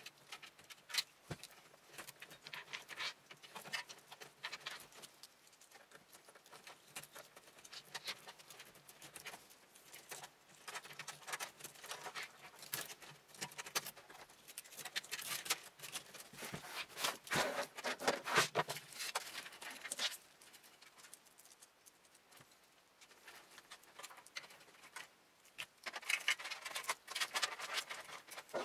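Cables being handled and routed inside a PC case: irregular rustling, scraping and light plastic clicks as the wires are pulled through and tucked in place.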